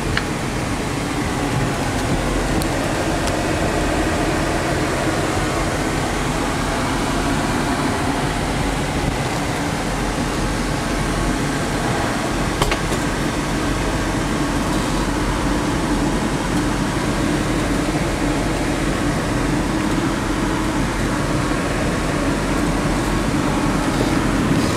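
Steady running noise inside the cabin of a 1966 Ford Thunderbird: the air-conditioning blower blowing with the engine idling. A light click about twelve seconds in.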